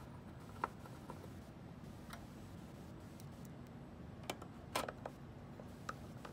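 A handful of small, sharp clicks and ticks from a hand screwdriver and small screws working against a circuit board on an aluminium cabinet frame, over a low steady room hum.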